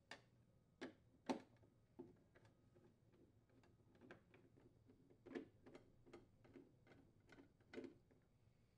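A nut driver unthreading screws from a refrigerator's plastic freezer air duct: a series of faint, irregular clicks and ticks, the sharpest just over a second in.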